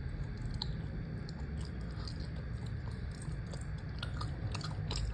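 Gummy shark candies being chewed: irregular soft clicks from the mouth working the jelly, coming more often in the second half, over a steady low hum.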